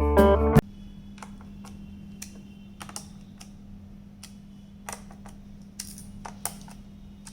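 Guitar music cuts off about half a second in. After it come scattered light clicks and taps of a small screwdriver and screws on a plastic laptop base as the cover screws are driven in.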